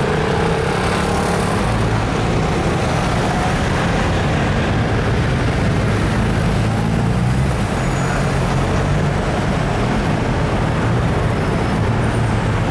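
Street traffic: double-decker buses and cars running and passing close by, with a steady low engine drone.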